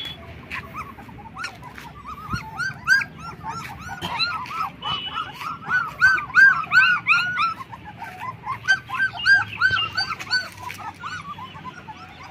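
A litter of 20-day-old German shepherd puppies whimpering and squealing: many short, high-pitched cries that rise and fall, overlapping each other and loudest around the middle.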